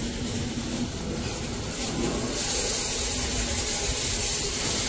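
A steady hiss that keeps on evenly, with no strokes or rhythm.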